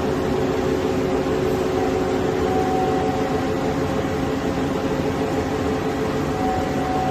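Kuraki KBT-10DX CNC horizontal boring and milling machine running: a steady mechanical hum with several steady tones, and a higher whine that comes and goes a few times.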